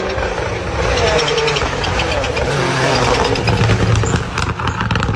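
Rally car engine revving hard as the car slides across an icy stage, with a rapid crackle of pops over the engine.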